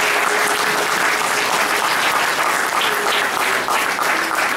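Audience applauding steadily, dense hand-clapping.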